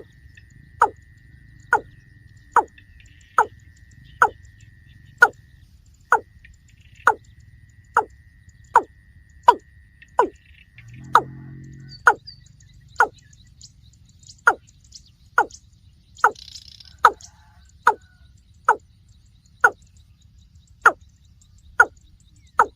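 Watercock calling: a long series of short, evenly spaced falling notes, a little more than one a second, with a brief pause about eleven seconds in.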